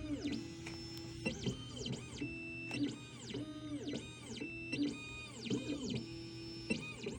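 Background music with plucked, guitar-like notes and sliding, arching pitches in a pattern that repeats every second or so.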